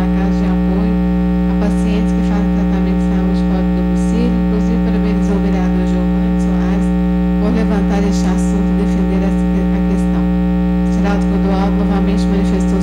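Loud, steady electrical mains hum in the sound system: several steady tones held unchanged, with faint scattered room sounds underneath.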